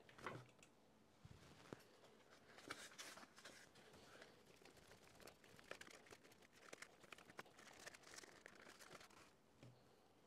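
Faint, irregular rustling and small clicks of thin ribbon wire and its plastic winder being handled on a desk.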